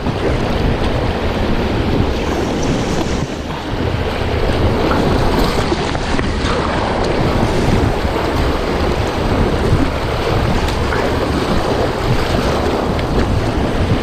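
Rushing whitewater river rapids with water splashing around the boat, a steady loud wash of noise with wind buffeting the microphone.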